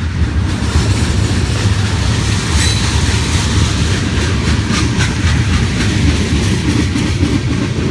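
BNSF train rolling past close by: a steady heavy rumble of the cars, with scattered clicks of wheels over the rail joints.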